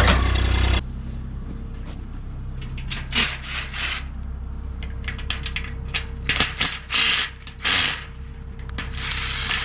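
Skid steer's diesel engine running with a steady low drone that cuts off abruptly about a second in. After it come scattered light clicks, knocks and short rustles over a faint hum.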